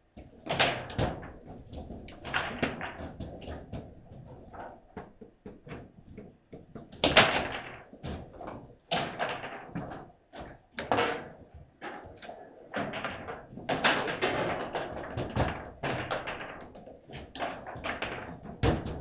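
Table football in play: the ball and the rod-mounted players knock and clack in quick, irregular strikes, with the rods thudding against the table's sides. The loudest knock comes about seven seconds in.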